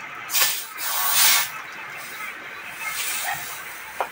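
Compressed air hissing from an air-line chuck held on the valve of a 10.00-20 truck tyre, in two short bursts, the second longer, with a sharp click near the end.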